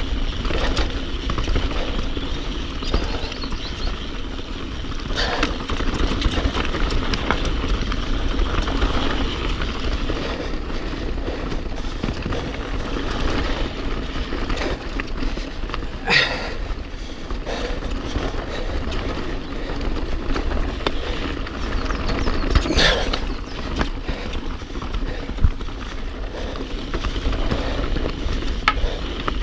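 Mountain bike riding fast down a rough dirt and rock singletrack: tyres rolling over gravel and stones and the bike rattling, with wind buffeting the microphone. A few louder knocks and scrapes stand out along the way.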